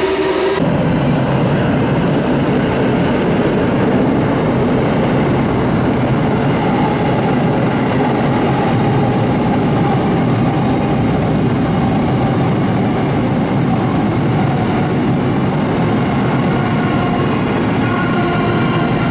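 Electric commuter train running past on the line, a loud steady rumble of wheels on rail with a faint motor whine.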